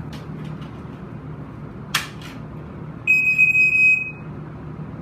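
A click about two seconds in, then a Black & Decker smoke alarm's piezo sounder gives one high, steady beep lasting about a second.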